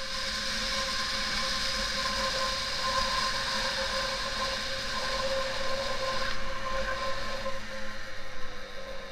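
Tuned Yamaha Aerox two-stroke scooter engine pulling hard in a 0–100 km/h acceleration run, holding a steady high note while the variator keeps the revs constant as speed builds. Near the end the pitch falls as the revs drop away.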